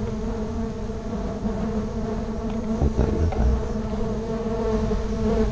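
A disturbed stingless-bee colony buzzing steadily around the microphone as its opened nest is moved into a hive box, with a faint knock or two about halfway through.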